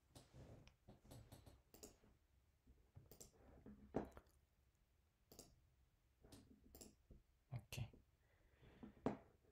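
Faint, irregular clicking from someone working a computer, about a dozen clicks. The sharpest come about four seconds in and just before the end.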